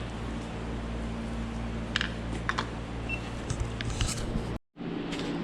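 Scattered light clicks and taps from handling work over a steady low hum; the sound drops out briefly near the end and the hum changes after it.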